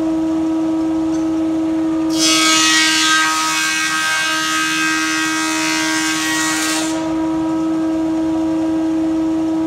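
Powermatic 20-inch thickness planer running with a steady hum. About two seconds in, an oak board is fed into the cutterhead and a loud, hissy cutting noise rises over the hum for about five seconds, then stops as the board clears the knives.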